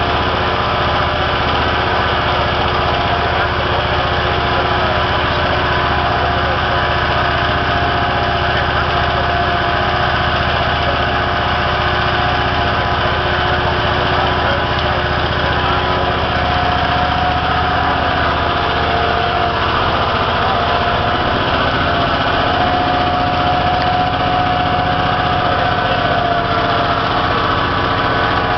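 An engine running steadily at an even speed, with a higher steady tone joining in for several seconds in the second half.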